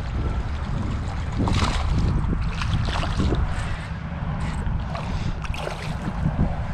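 Wind buffeting the microphone in a steady low rumble, with a few brief sharper sounds about a second and a half in, around three seconds, and again near five and a half seconds.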